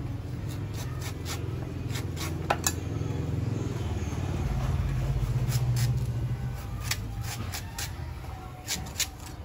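A steel cleaver chopping and shaving the husk of a young green coconut: a string of irregular sharp chops and taps, the loudest about two and a half seconds in and several close together near the end, over a steady low hum.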